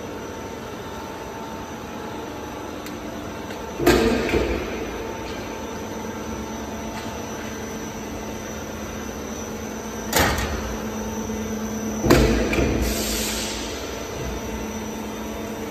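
Metal fence panel roll forming machine running with a steady hum, broken by three loud bangs with a short ringing after each: one about four seconds in, and two close together about ten and twelve seconds in.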